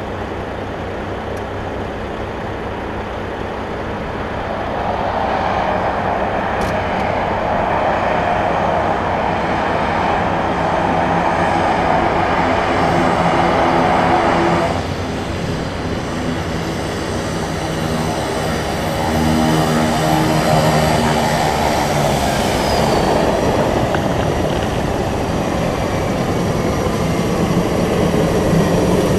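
Air Tractor AT-502XP crop-dusting plane's turboprop engine and propeller running as the plane comes along the strip and taxis up close, growing louder. About halfway through the sound drops suddenly, then it builds again as the plane nears.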